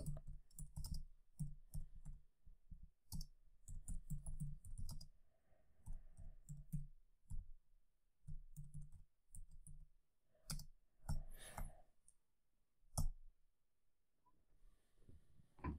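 Computer keyboard typing: faint, irregular keystrokes as a command is typed, with a few sharper strokes toward the end.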